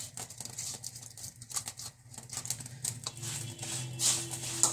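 A silicone spatula scraping and tapping as chopped strawberries are pushed from a plastic bowl into a pan of strawberry purée and sugar: a run of irregular soft clicks and scrapes over a low steady hum.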